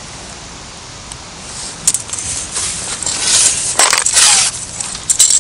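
A telescopic fishing rod being extended by hand. From about two seconds in, the carbon sections slide out with rasping rubs and sharp clicks as each one is pulled and seated.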